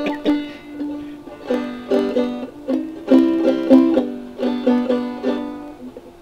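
A banjo with a Remo Weather King head being picked haltingly by a learner. It plays short runs of plucked notes broken by brief pauses, then lets the last notes ring out and fade shortly before the end.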